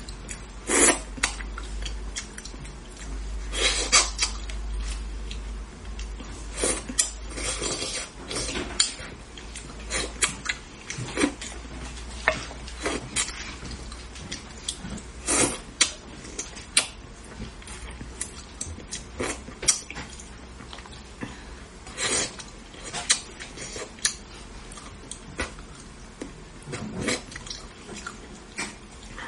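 Utensils clicking and tapping against a dish in many sharp, irregular strokes while eating, over a low hum that fades out about nine seconds in.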